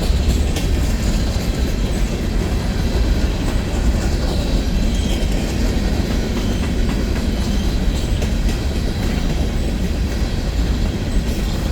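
Empty coal hopper cars of a freight train rolling past with a steady, loud rumble.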